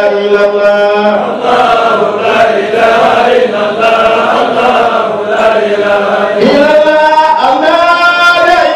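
A congregation of men chanting dhikr together in unison, holding long drawn-out notes that slide from one pitch to the next.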